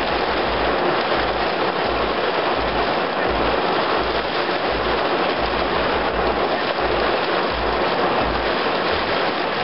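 Heavy storm rain pouring down in strong wind, a steady dense hiss, with a low throb pulsing underneath a bit more than once a second.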